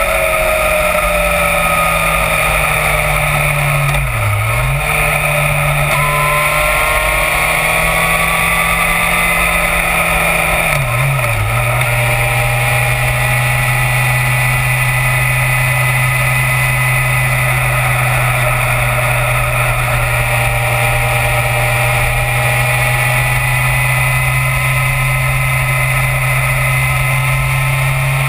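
Yamaha FZ1 inline-four motorcycle engine pulling steadily at road speed, under a steady rush of wind noise. The engine note dips briefly at gear changes about four seconds in and again about eleven seconds in, then holds a slightly lower steady pitch.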